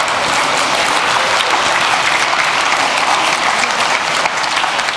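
Audience applauding: many hands clapping together in a large hall, keeping up a steady, loud ovation.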